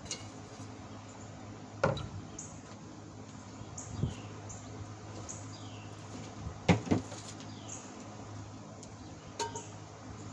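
A few scattered knocks and clanks, the loudest about two-thirds of the way in and one with a brief ring near the end, over a steady low hum. Short, falling bird chirps repeat throughout.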